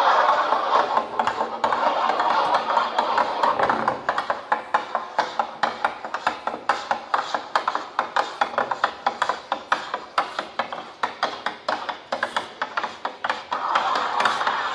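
Electronically amplified mark-making with drawing tools on paper: a dense scratchy scribbling at first, then from about four seconds in a long run of quick rhythmic taps, several a second, and scribbling again near the end.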